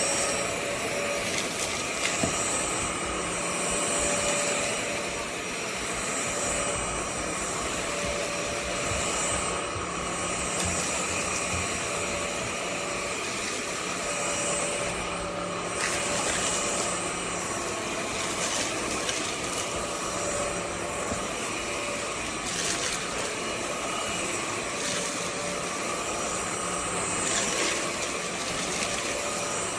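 VersLife cordless stick vacuum running steadily: a level motor whine over rushing air, its loudness swelling and easing a little.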